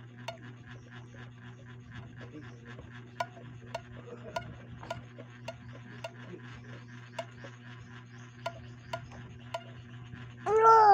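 Scattered light plucks and clicks on the plastic strings of a toy ukulele, about one every half second, over a steady low hum. Near the end comes a brief, loud voice-like call that rises and falls in pitch.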